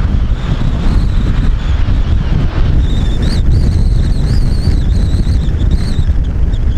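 Strong wind buffeting the microphone in a constant low rumble, over the high, wavering whine of a jet airliner's engines. The whine grows stronger about halfway through and fades near the end.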